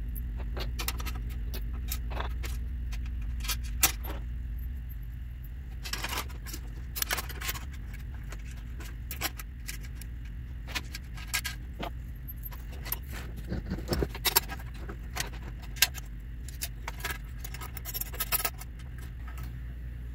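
Small metal clicks and jingling as thumb screws, washers and wing nuts are handled and fitted to fasten a metal accessory tray onto a telescope tripod's legs, over a steady low hum.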